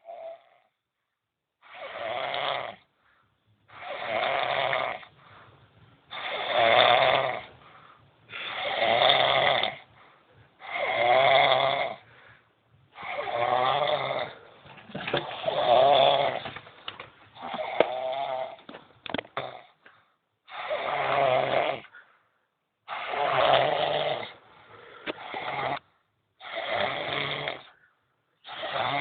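A man snoring, one snore about every two seconds with short quiet gaps between them.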